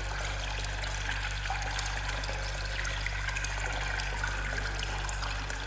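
Water trickling over a low, steady drone, with many small clicks in the water sound. It starts to fade out near the end.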